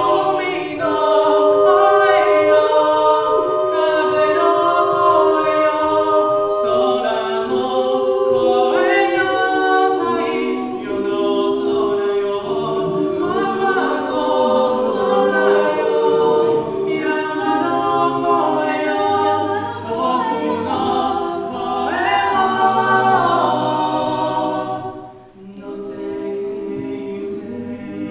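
Mixed five-voice a cappella group singing a Japanese pop song in harmony through handheld microphones, with a low bass line under the melody. Near the end the voices drop out for a moment, then carry on more softly.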